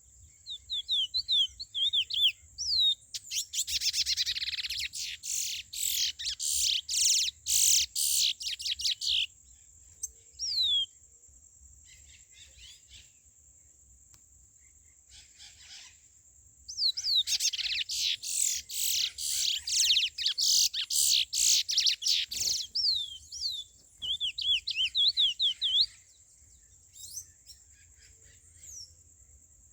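Curió (chestnut-bellied seed finch) singing. There are two long phrases of rapid whistled notes, starting about three seconds in and again around seventeen seconds, with shorter chirps and quick rising whistles in between. A steady high-pitched drone runs underneath.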